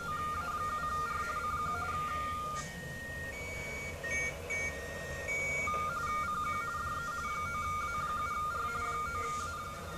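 Amateur radio teletype (RTTY) signal from a shortwave receiver, a rapid warble of two close tones alternating as the characters are keyed; the decoded text shows a station calling CQ. For about three seconds midway the warble stops and scattered short, higher beeps are heard before it returns, over a steady low hum.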